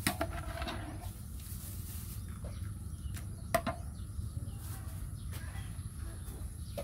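Long metal ladle stirring a large aluminium pot of boiling rice porridge, with a sharp click of metal on the pot about three and a half seconds in, over a steady low rumble.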